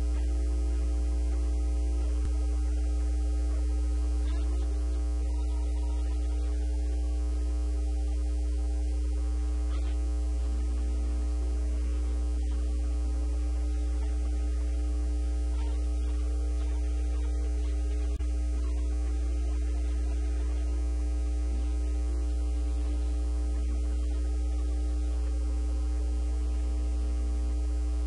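Steady electrical mains hum, with a series of higher steady tones above it, unchanging throughout.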